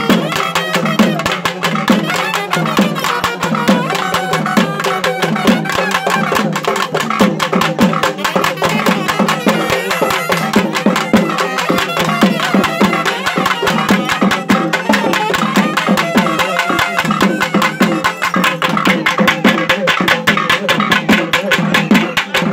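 Fast, continuous folk drumming by a group of drummers beating double-headed barrel drums with sticks, a dense rapid rhythm of strikes.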